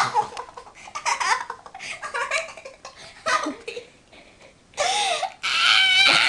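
Laughing and giggling in short bursts, turning into longer, louder, high-pitched wavering laughter near the end.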